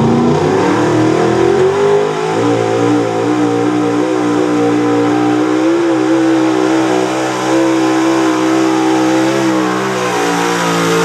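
Big-block V8 of a late-1970s Ford pickup pulling truck revving up over the first couple of seconds as it launches, then held at high, steady revs while dragging the weight sled.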